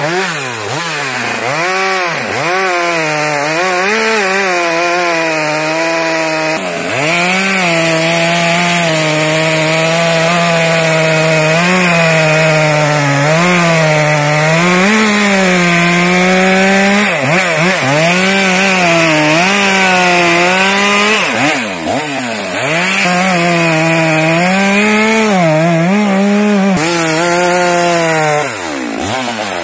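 Stihl MS 462 two-stroke chainsaw cutting through a log at full throttle. The engine pitch sags each time the chain bites into the wood and rises again as it frees up, several times over.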